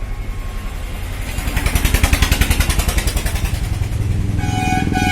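Motorcycle engine running with an even pulsing beat, swelling louder about a second and a half in, then easing back. A vehicle horn beeps a few times near the end.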